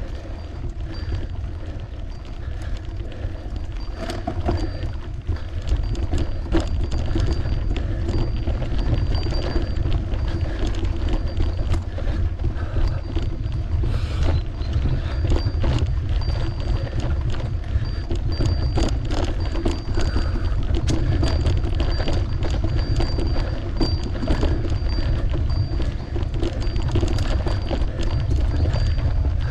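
Riding noise from a bicycle on the move: wind rushing over the microphone and tyres on the road, with frequent small knocks and rattles from bumps. It gets louder about six seconds in.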